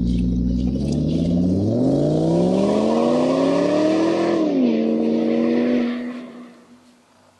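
Engine revving: it runs steadily at low speed, climbs in one long rising sweep, drops back quickly and holds, then fades out about six seconds in.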